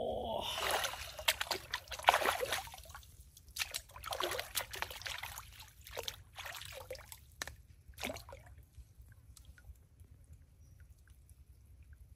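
Water sloshing and splashing in irregular bursts, loudest about two seconds in, dying away after about eight seconds.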